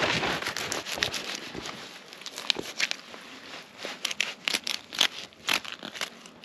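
Fillet knife cutting and scraping a frozen crappie on a rock: irregular crunching and crackling, with a run of sharp clicks about four to six seconds in.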